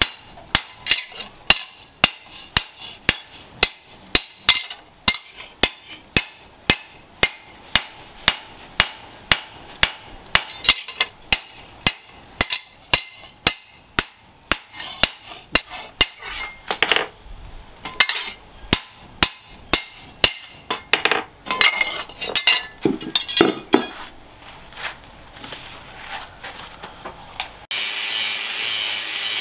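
Hand hammer striking a steel cleaver blade laid on a steel-pipe stake, about two sharp metal-on-metal blows a second, growing sparser after about sixteen seconds. Near the end an electric angle grinder takes over, grinding the steel blade with a steady noise.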